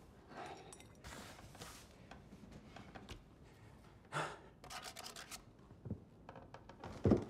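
A pen scratching across paper as a document is signed, with a few sharp breaths in between. A dull thump near the end is the loudest sound.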